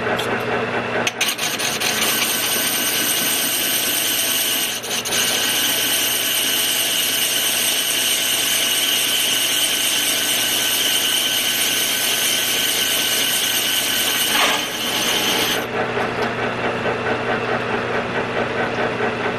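Metal lathe running with a steady motor hum while a cutting tool takes a cut on a cast model locomotive wheel: a loud scraping with a high steady ring starts about a second in and stops abruptly about three-quarters of the way through, leaving the lathe running.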